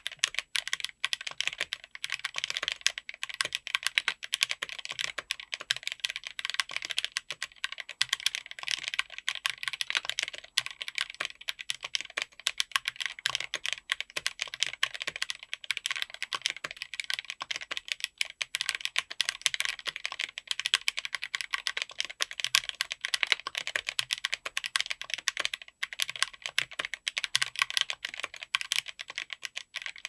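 Fast, continuous typing on a mechanical keyboard with Akko CS Crystal linear switches under polycarbonate OSA-profile keycaps on a PC plate: a dense, unbroken patter of key clacks.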